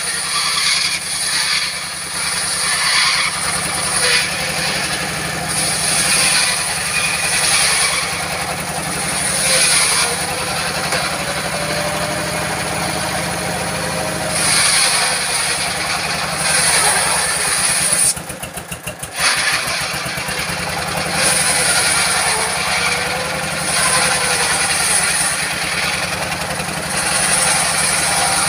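An old diesel engine drives a large circular saw blade, running steadily while it rips a teak log lengthwise. The blade's high whine swells and fades every couple of seconds as the log is fed through. The sound dips briefly about two-thirds of the way in.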